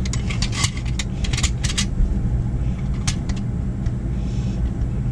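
Light metallic clicks and clinks of a clamp and brake parts being handled, bunched in the first two seconds with a few more about three seconds in, over a steady low rumble.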